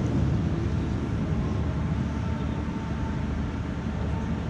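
Steady low rumble and faint rustle of a large, packed prayer hall, with wall-mounted fans running and the congregation holding the bow without a word.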